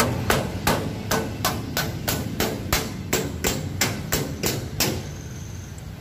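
Steady hammering: about fifteen sharp hammer blows, roughly three a second, stopping about five seconds in.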